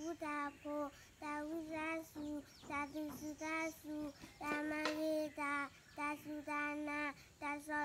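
A young girl singing alone, unaccompanied, in short phrases of held notes.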